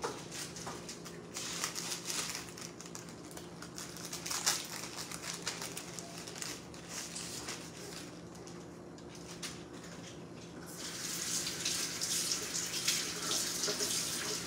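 Kitchen tap turned on about eleven seconds in and running steadily into the sink, after a stretch of light clicks and handling noises.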